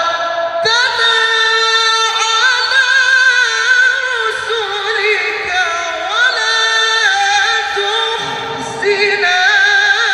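A male Quran reciter (qori) chanting in the melodious tilawah style into a microphone, holding long high notes with rapid wavering ornaments. A short break under a second in is followed by a new phrase.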